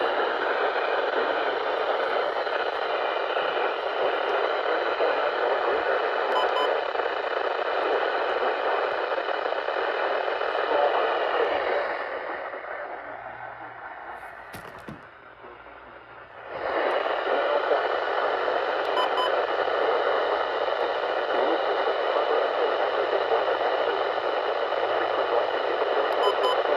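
Radio receiver static: a steady hiss with no broadcast voice. It fades much quieter about twelve seconds in, then comes back suddenly about four seconds later.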